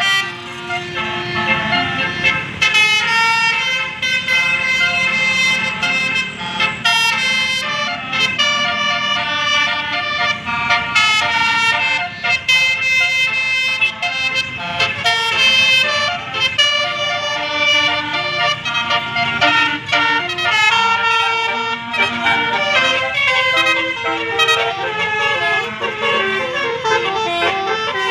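Tour bus's Basuri 'telolet' multi-tone horn playing melodic tunes, the pitch changing note by note without a break.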